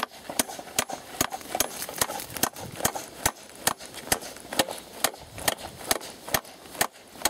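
Steady hammer blows on a large nail being driven into a wooden fence rail, with the nail held in pliers, about two or three sharp knocks a second.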